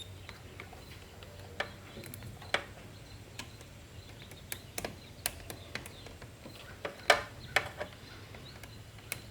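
Multimeter probes tapping and clicking on the blade fuses of a car fuse box: a dozen or so light, irregular clicks, with no continuity beep from the meter. No beep on a fuse is the sign of an open circuit, here the blown fuel pump fuse behind a no-start.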